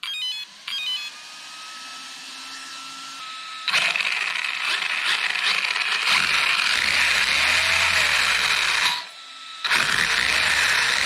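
Brushless ESC giving its short startup beeps as a 3S battery is connected to a 1/16 RC monster truck. A quieter motor whine follows, then from about four seconds the brushless motor and drivetrain spin the tyres in the air at high throttle with a loud whine that rises and falls. The throttle is let off briefly about nine seconds in, then applied again.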